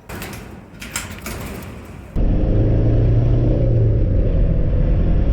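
A few faint clicks and rustles, then about two seconds in a sudden change to a van's engine and road noise while driving: a loud, steady low rumble.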